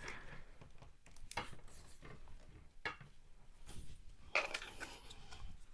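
Faint clicks and taps of a plastic action-figure horse being handled and positioned, with a few sharp ticks and a short soft rustle about four and a half seconds in.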